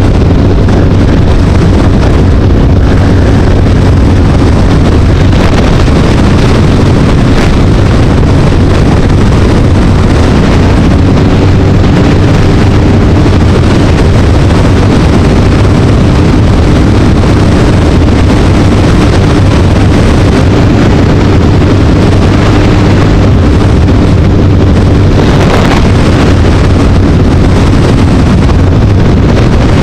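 Loud, steady wind rush over the microphone of a moving rider's camera, with a steady low hum underneath.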